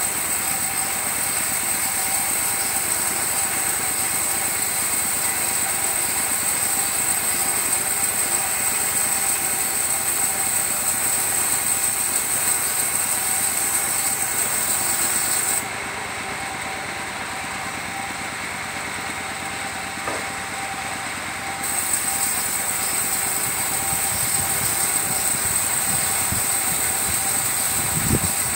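Circular sawmill running steadily with a high whine as its blade cuts a coconut-wood log. About halfway through the high whine drops out and the sound goes lower and quieter for several seconds, then comes back. A few low knocks near the end.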